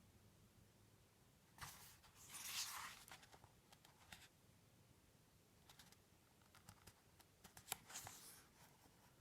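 Near silence, with a faint paper rustle of a book page being turned about two seconds in and a few light clicks near the end.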